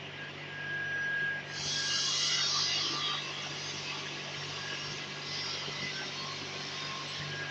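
Cylinder head of an Isuzu forklift engine being lifted off the block, with a scrape about one and a half seconds in lasting over a second. A steady low hum runs underneath.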